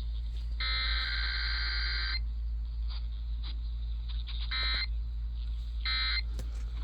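Emergency Alert System digital header tones received over AM radio: a raspy, buzzing data burst about a second and a half long early on, then three short bursts of the same tone about a second apart near the end. A steady low hum from the radio runs underneath.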